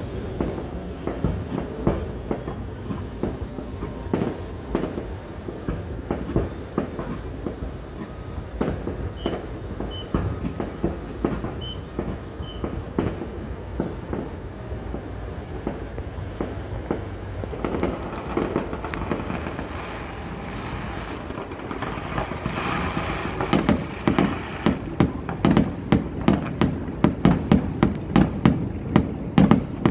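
Fireworks display: a dense, continuous patter of shell bursts and crackling over a steady rumble. From about three-quarters of the way in it becomes a quick, even run of louder bangs, a little over two a second.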